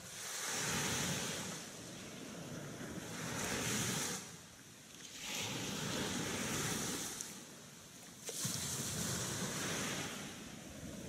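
Gentle surf washing onto a sandy beach, each wave swelling and fading every two to three seconds, four times.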